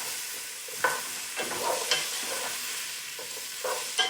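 Sliced leeks, carrots and onion sizzling in olive oil in a hot pot, with a steady hiss throughout, as they are sweated towards translucent. A utensil stirs and scrapes against the pot several times.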